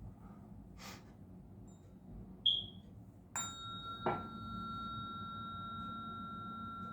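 Tuning fork struck and left ringing with a steady high tone, struck again under a second later; a short high ping comes just before the first strike.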